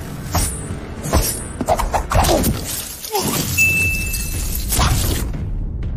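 Film fight sound effects: a rapid series of hard impacts and crashes with shattering and breaking debris. It dies down about five seconds in.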